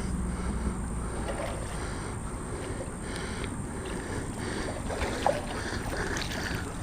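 Steady wind noise on a small action-camera microphone: a low rumbling hiss with no clear events in it.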